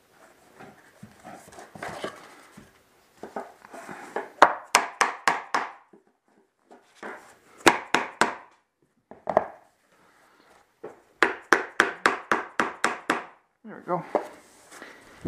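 Laminate floor plank being knocked into place with a scrap piece of flooring used as a tapping block: three quick runs of sharp wooden knocks, about five a second, driving the tongue-and-groove joint shut. Scuffing and shuffling on the floor come first.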